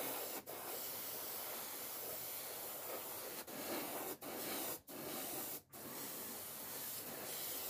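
Gravity-feed airbrush spraying acrylic paint thinned heavily with water: a steady hiss of air and paint, broken by about five brief gaps where the trigger is let off.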